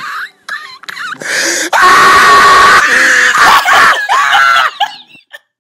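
A man laughing hysterically: high, shrieking, scream-like laughter, loudest about two to three seconds in, then trailing off in breathy gasps and cutting out near the end.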